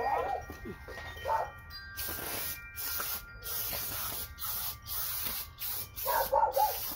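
Aerosol can of cleaner sprayed in a quick series of short hissing bursts, starting about two seconds in, to clean the gasket surface of a Cummins 6BT diesel's front gear housing.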